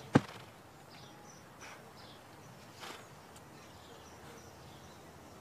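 A single sharp knock just at the start, then quiet outdoor ambience with a few faint high chirps from insects and birds.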